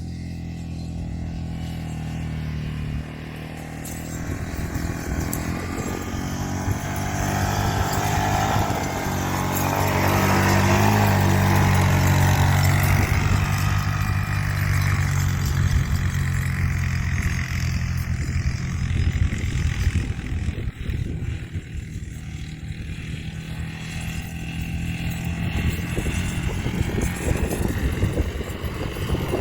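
Quad bike (ATV) engine running as it drives up and down levelling rough ground, growing louder as it comes nearest about ten seconds in, then dropping away and building again near the end.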